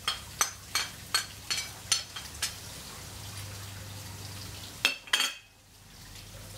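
Metal spatula stirring and tapping ground sausage and onions frying in a pan on a gas grill: sharp clicks about two or three a second for the first couple of seconds, then steadier sizzling. Two loud clacks about five seconds in.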